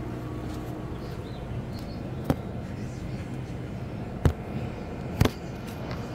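Steady low hum of running refrigeration equipment, with three sharp clicks or knocks, the second the loudest.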